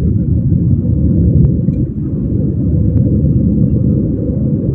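Steady low road and tyre rumble inside a Perodua Myvi's cabin as it drives over rough, pitted asphalt, with a couple of faint light ticks. The car is being driven over this surface to bring out a front suspension rattle that shows on uneven road.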